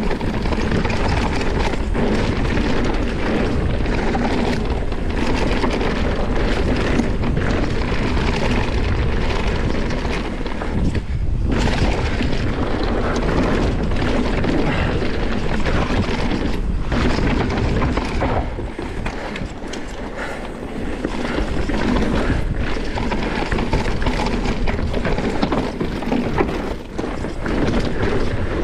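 Mountain bike descending a dirt forest trail at speed: wind buffeting the action camera's microphone over the tyres rolling on dirt, with frequent knocks from the bike over bumps. The rush eases briefly a little past halfway.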